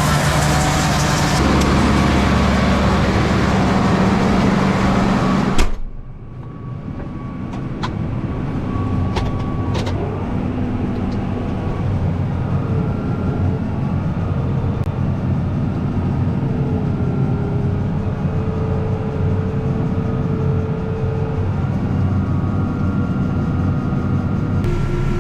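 Heavy farm machinery engine running loud and rough. About six seconds in there is a sharp knock, and the sound drops abruptly to a quieter, steady engine hum with faint whining tones over it.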